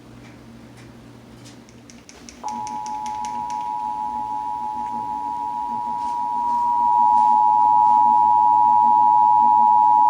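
Emergency Alert System two-tone attention signal, 853 Hz and 960 Hz sounded together. It starts abruptly about two and a half seconds in as a steady two-note tone and gets louder about six seconds in, after a stretch of faint clicking.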